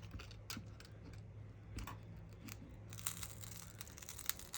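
Small clicks and fine crackling as a pry tool works under a glued-in smartphone battery, the adhesive peeling and tearing, with the crackling densest near the end. A faint steady hum runs underneath.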